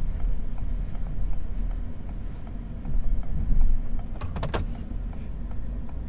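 Steady low rumble of a pickup truck driving, heard from inside the cab, with a quick cluster of four or five sharp clicks or rattles a little past four seconds in.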